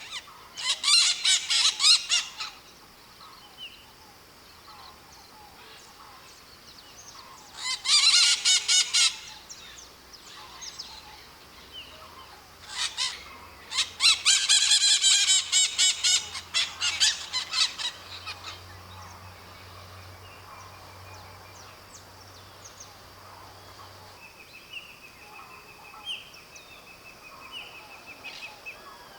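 White-eyed parakeets (maritacas) screeching in loud bouts of rapid, harsh repeated calls: one near the start, another about eight seconds in, and a longer one from about thirteen to seventeen seconds in, with a faint steady high whine underneath.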